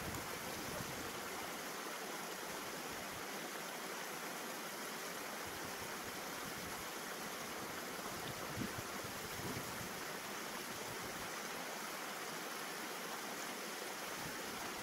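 Steady rushing of a small upland stream running over rocks, with a couple of faint low buffets of wind on the microphone.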